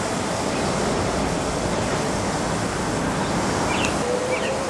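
Queensland Rail electric suburban train running through the station: a steady rushing rumble, with a faint whine coming in near the end.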